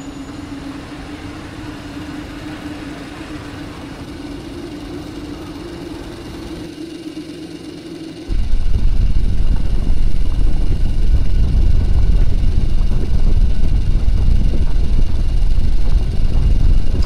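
Motor scooter riding, a steady low engine hum under one held tone. About eight seconds in, a sudden, much louder deep rumble takes over and stays.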